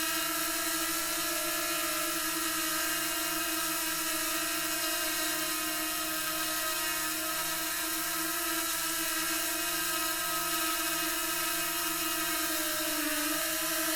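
DJI Mini 2 quadcopter drone hovering, its four propellers giving a steady high-pitched whine; the pitch dips briefly near the end as the motors slow, then picks up again.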